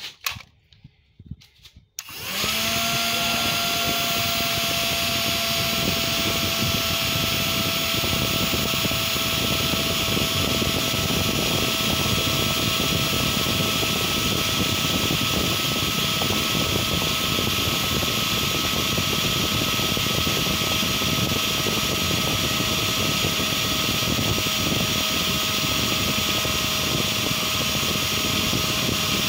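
A few clicks, then about two seconds in the toy air conditioner's small electric fan motor starts and runs steadily, a whirring hum with a thin whine.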